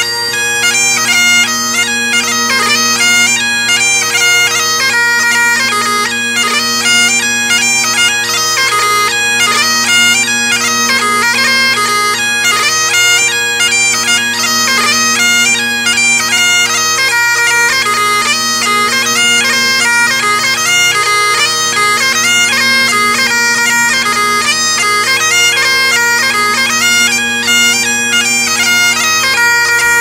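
Great Highland bagpipe played solo: steady, unbroken drones sounding beneath a fast-moving chanter melody.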